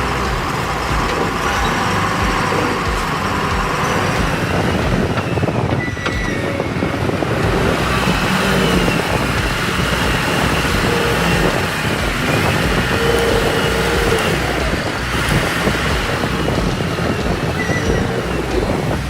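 Heavy machinery running: a steady diesel engine drone with mechanical clatter.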